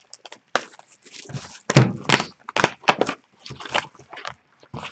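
Hockey trading cards and a cardboard card box being handled and set down on a counter: a run of short knocks and rustles.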